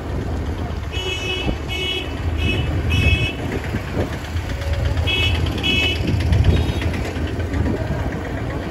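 Motorcycle riding through town traffic with a steady low rumble of engine and wind, while a vehicle horn gives short toots: four in quick succession about a second in, then two more about five seconds in.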